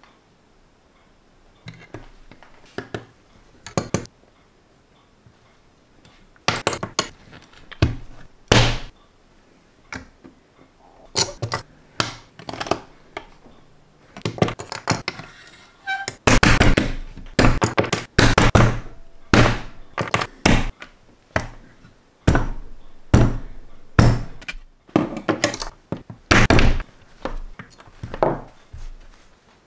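Plastic LEGO bricks being pressed and snapped together with metal tweezers and knuckles on a tabletop: a string of irregular sharp clicks and thunks, sparse at first and coming thick and fast from about halfway.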